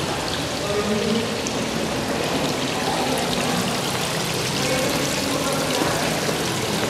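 Water splashing and trickling steadily in a lobby fountain.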